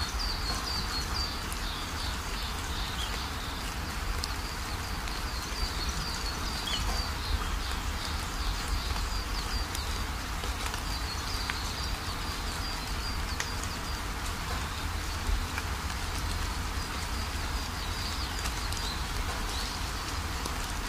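Nature ambience: a steady hiss like falling rain, with runs of short, high, repeated chirps from an insect or bird that come and go throughout.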